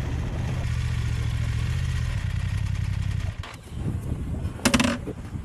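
Motorcycle engine running at a low, steady pace, then stopping suddenly about three seconds in. A brief loud sound comes about a second later.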